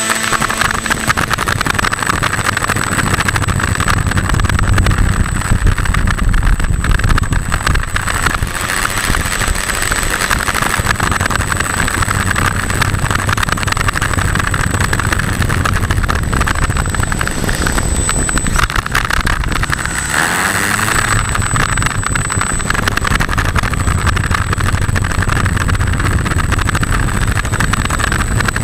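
E-flite Opterra 2 m flying wing's electric motor and pusher propeller running as it taxis on asphalt, heard from a camera mounted on the plane: a steady propeller whir over the rolling noise of its small wheels on the road, with the throttle easing off and coming back up about twenty seconds in.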